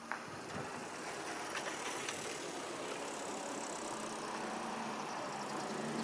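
Steady rush of shallow river water flowing over stones, with a low steady hum coming in near the end.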